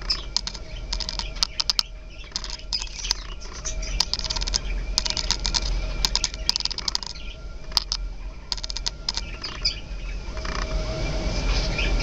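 Budgerigars' beaks clicking in short bursts of rapid clicks, repeated every second or so, as one budgie feeds its mate beak to beak in courtship feeding.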